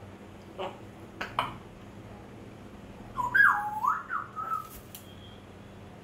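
African grey parrot making a few short clicks, then about three seconds in a loud whistled phrase of gliding notes that dips and rises, lasting about a second and a half.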